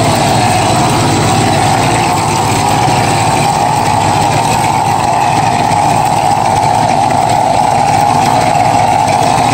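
Stucco pump running steadily as mortar is sprayed through a hand-held air spray gun, giving a constant machine drone with the rush of the spray and no change in pace.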